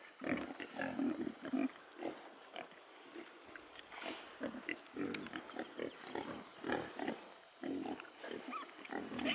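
Several young pigs grunting: a steady, irregular run of short low grunts, a few a second.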